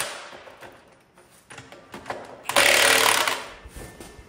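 Cordless impact wrench hammering on a wheel nut of a Dayton spoke-wheel trailer hub: a short hit right at the start, then about a second of hammering near three seconds in that trails off.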